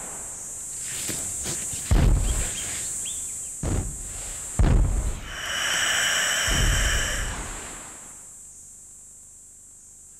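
Steady high insect buzz with four heavy thuds and scuffs, the sound of Komodo dragons grappling on the ground. A louder, layered buzz swells in for about two seconds past the middle, and the sound dies down near the end.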